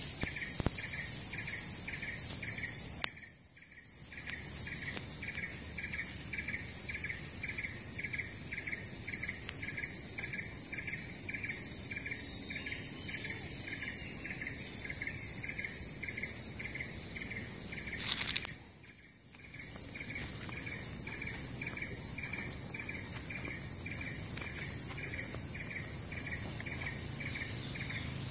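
Loud daytime insect chorus: a shrill, pulsing high buzz, with a second insect chirping in an even rhythm about twice a second. The chorus cuts out briefly twice, about three seconds in and again about eighteen seconds in, then starts up again.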